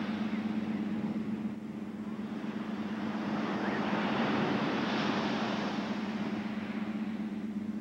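Ocean surf washing on a beach: a steady rushing noise that swells to its loudest about halfway through, over a steady low hum.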